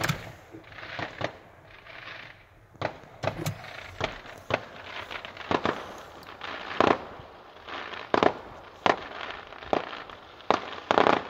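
Fireworks going off in the distance: a dozen or more sharp bangs at irregular intervals, some in quick pairs.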